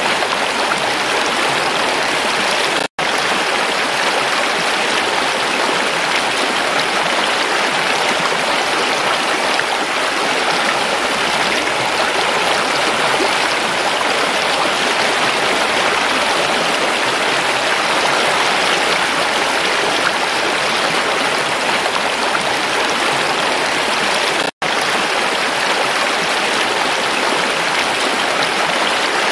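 Shallow rocky stream rushing over stones and small cascades: a steady, even rush of water. It cuts out twice to silence for a split second, about three seconds in and again about five seconds before the end.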